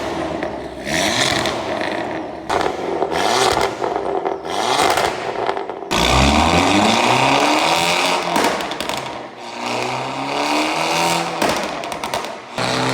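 Abarth 595's turbocharged 1.4 T-Jet four-cylinder revved again and again at a standstill. It breathes through a 63.5 mm valved exhaust with a downpipe and a free-flowing mid-pipe, with the exhaust valve open. Each blip rises and falls back, and a sharper, louder rev comes about halfway through.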